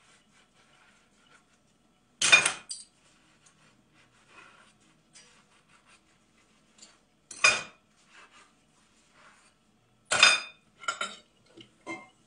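Dishes and cutlery clattering in a kitchen sink during washing-up. There are three loud clatters a few seconds apart, faint clinks between them, and a quick run of lighter clinks near the end.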